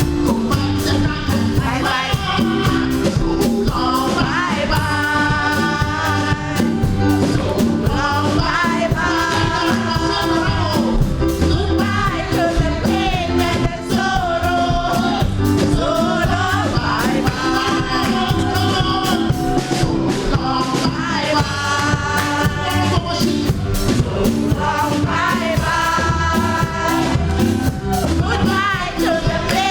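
Gospel choir singing live over a band with a steady drum beat.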